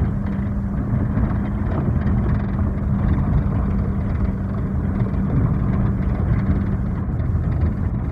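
A vehicle driving on an unpaved gravel road: a steady engine hum and rumble of road noise.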